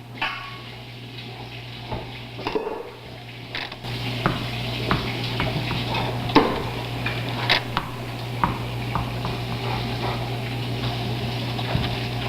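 Scattered clicks and light clattering, like small hard objects being handled, over a steady low electrical hum.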